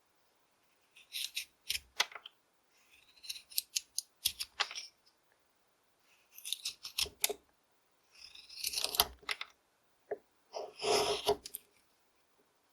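Carving knife slicing shavings off a basswood stick, in five clusters of quick, sharp cuts with short pauses between them.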